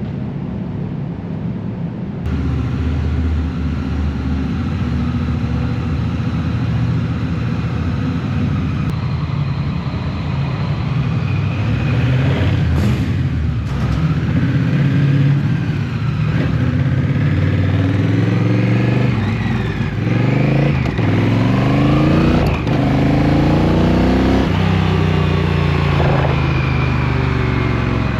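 Motorcycle engine running at highway speed. In the second half its pitch climbs several times as it accelerates.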